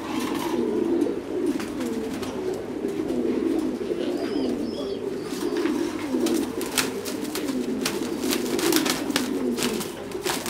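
A dense, continuous chorus of many caged Titan Thái meat pigeons cooing. From about halfway through, the clicks and rattles of wire cages being handled come in over it.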